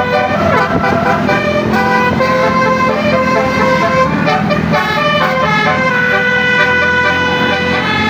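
Telolet bus horn playing a melody: several horn tones sounding together, held and stepping from note to note, over a steady low hum.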